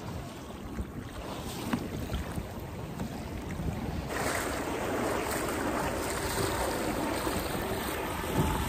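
Water rushing and lapping along the hull of a 1977 Alcort Sunfish dinghy under sail, with wind on the microphone; the rush grows louder about four seconds in.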